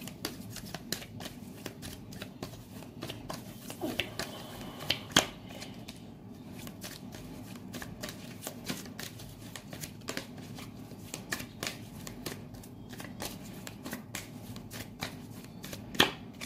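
Tarot deck being shuffled by hand: a steady run of soft card clicks and flicks, with a couple of sharper snaps about five seconds in and near the end.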